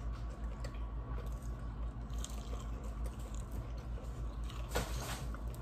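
Quiet eating and drinking sounds: sipping a soft drink through a straw and chewing, small mouth clicks over a low steady hum, with a brief louder rush of noise near the end.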